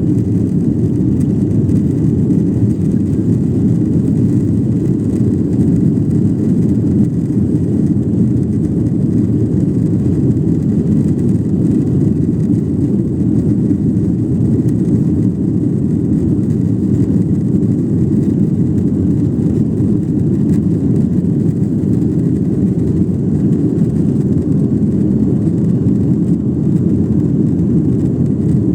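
Airliner jet engines running at full takeoff thrust, heard inside the passenger cabin as a steady, loud, low noise.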